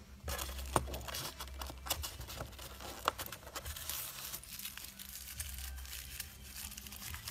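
Crinkling and rustling of packaging as small scale-model parts are unwrapped and handled, with scattered sharper clicks, the two loudest about a second in and about three seconds in.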